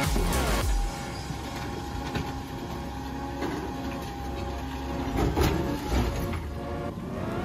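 Rear-loader garbage truck running with a steady hum, with a couple of thumps around five and six seconds in as a couch is shoved into its hopper.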